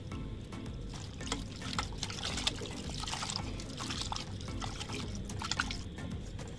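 Tap water running into a steel pot of boneless chicken pieces, splashing and sloshing as hands rub and rinse the meat. Background music plays underneath.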